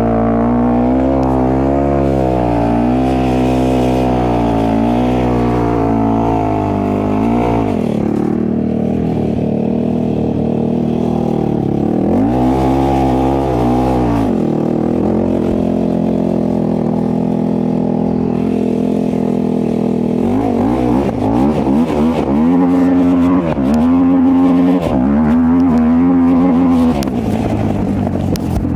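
A single-cylinder 450cc four-stroke off-road engine revving up and down over and over, its pitch rising and falling with each blip of the throttle, as the rider spins the rear wheel in burnouts. There is a long lower-revving stretch in the middle, then a quick run of revs near the end.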